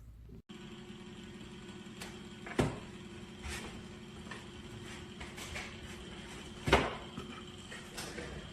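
Two sharp knocks, about four seconds apart, and a few lighter clicks over a steady low hum.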